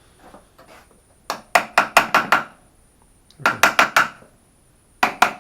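Small tap hammer striking metal shelf brackets to drive them down into the slots of a steel wall track: three quick bursts of taps, about six, then four, then three, each with a short metallic ring. The brackets are tight and resisting going in.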